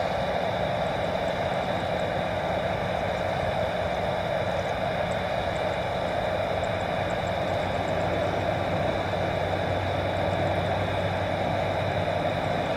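Boeing 747-400 freighter's four jet engines running steadily at taxi power as the aircraft turns on the runway: a steady rushing hum with a high whine over it.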